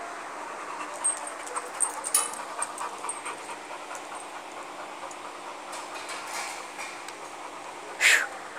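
A dog panting in a few loud, breathy puffs near the end, after a stretch of light clicks and clinks from its metal chain leash and claws on tile.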